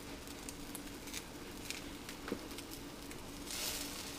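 Pancake batter sizzling on a hot electric skillet, with scattered small crackles and a brief louder hiss near the end.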